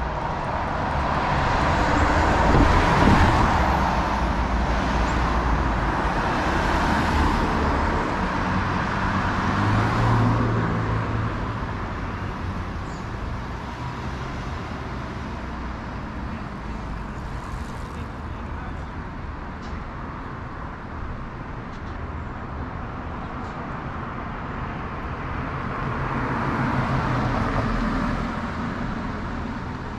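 Road traffic passing on a city street: several vehicles go by one after another, their rush swelling and fading. The loudest passes come in the first ten seconds, and another comes by near the end.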